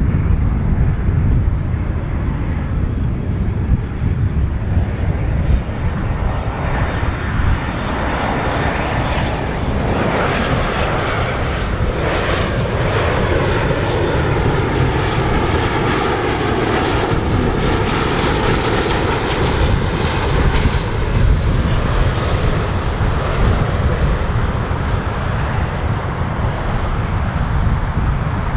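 Jet airliner on landing approach passing low overhead: its engine noise builds, peaks about halfway through with a sweeping whine, then fades away.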